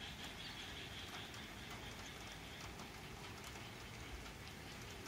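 Rain falling: a soft, steady hiss with many small, scattered drop ticks.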